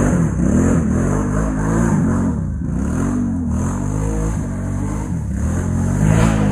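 Quad (ATV) engine, its revs rising and falling again and again, roughly once a second, as the throttle is opened and eased off on a steep, rough dirt descent.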